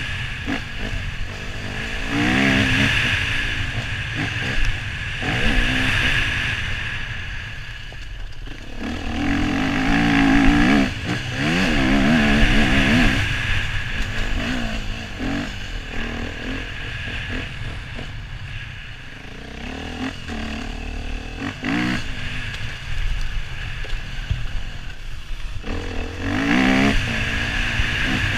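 Husqvarna FE 250 four-stroke single-cylinder enduro bike engine heard from the rider's helmet, revving up in rising sweeps and easing off again and again as the bike accelerates along a dirt track. There are quieter off-throttle lulls about two-thirds of the way through, under a steady hiss.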